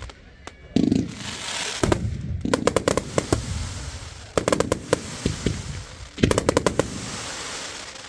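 Fireworks display: rapid volleys of sharp bangs every second or two, with a crackling hiss between them that fades near the end.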